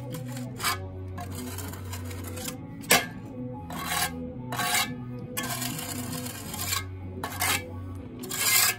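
Scraping and rubbing strokes of masonry work on concrete block and mortar, three longer scrapes with short sharp taps between them, the last scrape the loudest, over steady background music.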